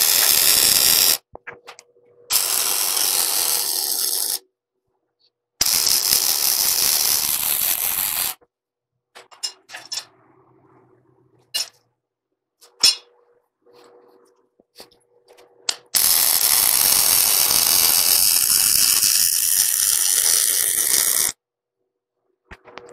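Wire-feed MIG welder arc crackling and hissing as beads are laid on steel, in four separate runs: a short one at the start, two of two to three seconds, and a longer one of about five seconds past the middle. Between runs come a few sharp clicks and knocks and a faint hum.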